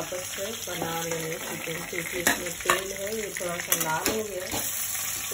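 Chicken leg pieces sizzling as they shallow-fry in hot oil in a kadhai, with a metal spatula scraping and knocking against the pan a few times as the pieces are turned.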